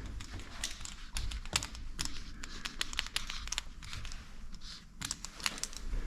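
Irregular light clicks and crackles, several a second, over a low rumble.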